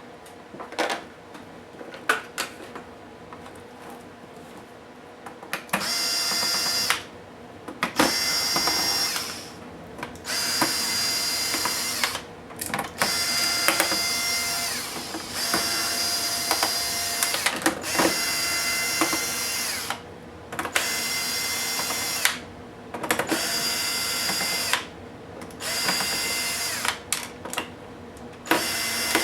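Small electric screwdriver running in short spurts of one to two seconds, about nine times, driving out the screws of a Toshiba P755 laptop's case. Light clicks and taps of handling come before the first spurt.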